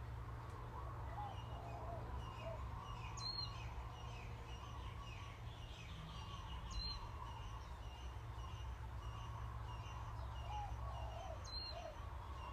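Several birds chirping and twittering, with a short high note every three or four seconds, over a steady low rumble.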